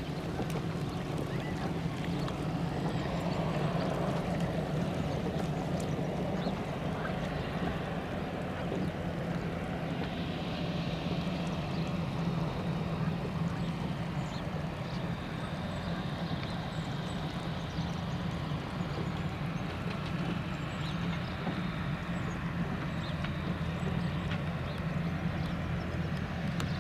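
Pilatus PC-12/47E's single Pratt & Whitney PT6A turboprop engine and propeller running steadily at low power, a constant low hum with a higher whine joining about ten seconds in.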